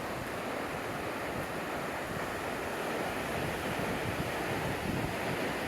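Steady rushing of the Nolichucky River, an even water noise with no rhythm or breaks.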